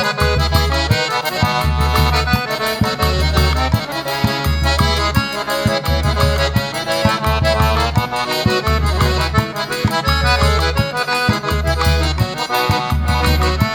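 Forró pé de serra music, instrumental break: an accordion plays the melody over a steady low beat.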